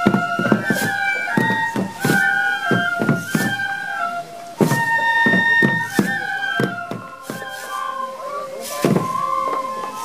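Shishimai festival music: shinobue bamboo flutes playing a held, stepping melody, with drum strokes beating along at an uneven rhythm throughout.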